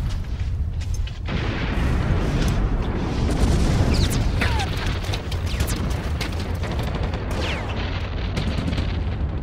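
Battlefield sound of trench warfare: a continuous low rumble of shelling with scattered sharp cracks of gunfire, and a few falling whistles about four and seven seconds in.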